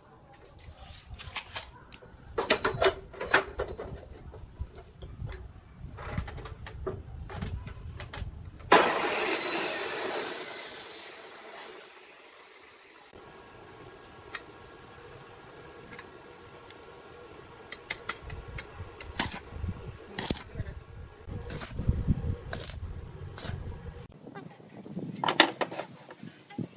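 Woodworking shop sounds: a series of knocks and clattering from wood and tools, with a burst of loud hissing noise lasting about three seconds near the middle.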